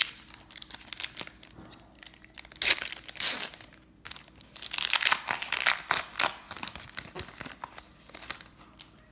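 A baseball card pack's foil wrapper being torn open and crinkled, in irregular bursts of crackling, the loudest about three seconds in and again around five to six seconds.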